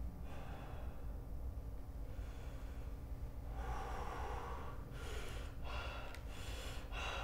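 A man's heavy breathing and gasps as he starts to cry. The breaths come louder and quicker toward the end.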